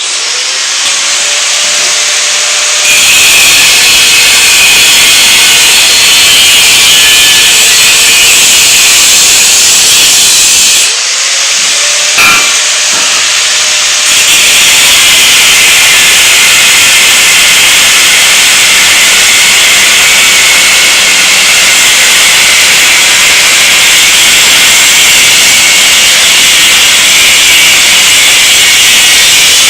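Angle grinder cutting the steel tabs off a seat bracket: the motor spins up with a rising whine and the disc bites into the metal with a loud, steady hiss. It stops about eleven seconds in, spins up again a second later and cuts on steadily.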